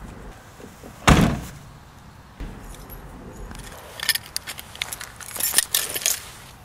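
A car door slams shut once, about a second in. A few seconds later a bunch of keys jingles in quick clinks as it is pushed into a jeans pocket.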